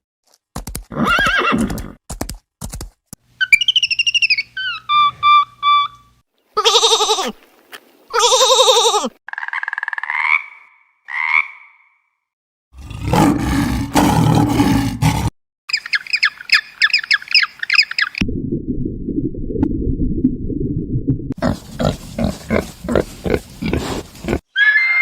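A string of different animal calls cut one after another, each lasting one to three seconds and stopping abruptly: pitched, sliding calls, then a low, rough call, a fast high trill and a low rumbling stretch.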